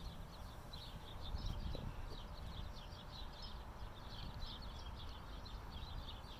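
Small birds chirping, many short high calls a second, over a low rumble that swells briefly about a second and a half in.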